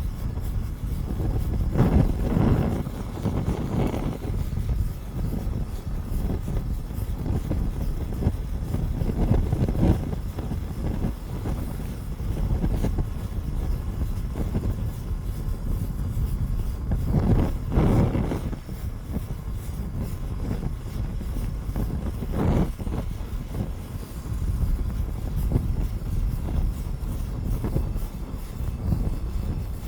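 A large fire burning with a steady low rumble, swelling in brief louder flare-ups a few times, most strongly about two-thirds of the way through.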